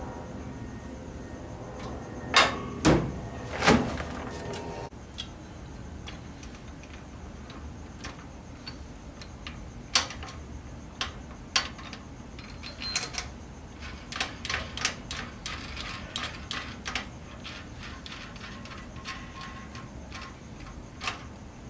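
Metal clanks and clicks from an axle shaft and hand tools knocking against the end of a GM 10-bolt rear axle housing. Three loud clanks come in quick succession a couple of seconds in, then lighter scattered clicks and taps follow in the second half.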